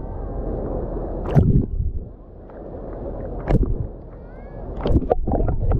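Seawater sloshing and lapping right at a microphone held at the water's surface, with three louder splashes of small waves, roughly two seconds apart.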